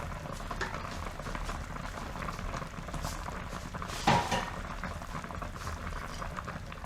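Pot of chicken boiled in seasoned water still bubbling just after the electric cooker is switched off, a steady fine crackle, with a single knock of a utensil or pot about four seconds in.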